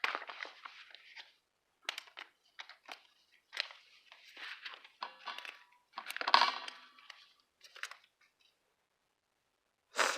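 Paper and sticker sheets being handled close to the microphone: irregular crinkling and rustling with some tearing. The rustling is loudest about six seconds in, and there is a short sharp crackle near the end.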